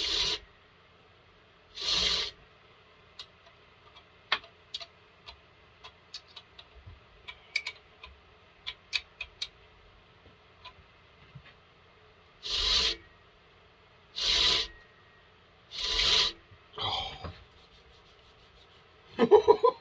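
Hand work on a chainsaw bar and chain: six short scraping strokes of about half a second each, with scattered light clicks in the stretch between them.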